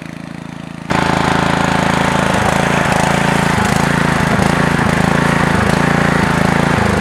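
Yard Machines riding lawn mower engine running steadily, heard up close; it gets suddenly much louder about a second in.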